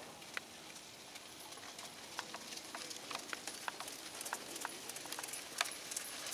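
Faint hoofbeats of a pony at a slow trot on a sandy arena surface, heard as light, irregular clicks.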